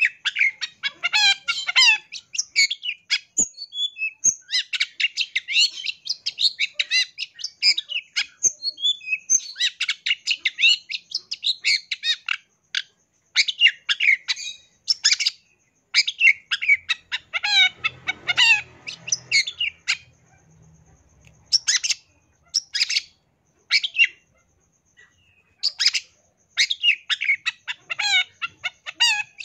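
Long-tailed shrike (cendet) singing a rapid, chattering song packed with mimicked notes of other birds. It comes in phrases of a second or two with short pauses between them, and the phrases grow shorter and more broken in the last third.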